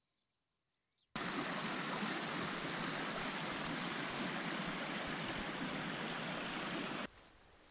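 Near silence for about a second, then a fast-flowing river rushing steadily over stones, cutting off abruptly near the end.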